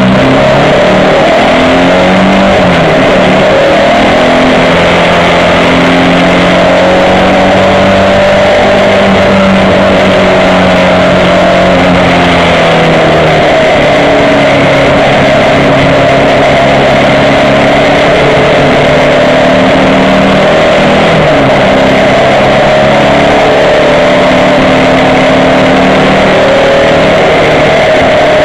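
Car engine at hard throttle heard from inside the cabin, loud, its pitch climbing and then dropping back again and again as it is driven through the gears and lifts off for corners, over a steady rush of road and wind noise.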